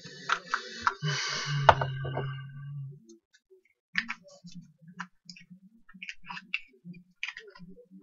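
A small wrapper being crinkled and folded in the hands: dense crackling for the first three seconds, then scattered soft crackles and clicks.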